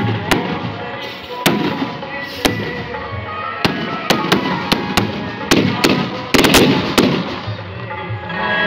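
Fireworks going off: over a dozen sharp bangs of aerial shells and ground fireworks, coming fastest in the middle, over music playing in the background.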